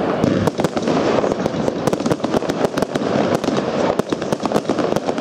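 Dynasty 'The Cube' consumer fireworks cake firing shot after shot: a dense, irregular stream of launch thumps and bangs from shells bursting overhead.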